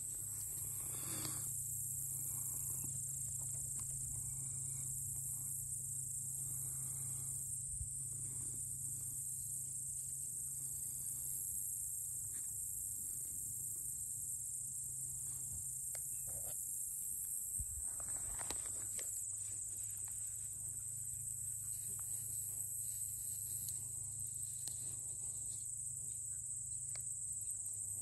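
Steady high-pitched chorus of insects in a grass field, with a low steady hum beneath and a couple of brief faint noises.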